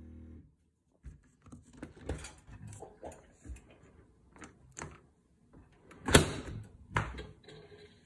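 Bosch dishwasher's running hum cuts off about half a second in, then a run of clicks and knocks as its door is worked open and the Start button pressed, with two loud clunks from the door about six and seven seconds in.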